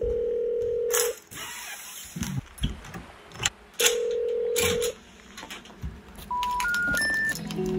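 Telephone ringback tone, about a second long, heard twice with a few knocks and clicks in between. Then three short beeps rising in pitch: the special information tone that signals a call cannot be completed.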